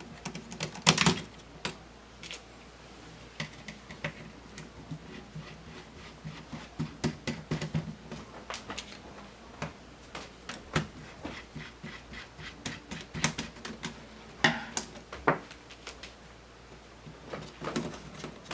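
Irregular small clicks, taps and knocks of hard plastic laptop parts being handled during disassembly, with louder clatters about a second in and again near the 14–15 second mark.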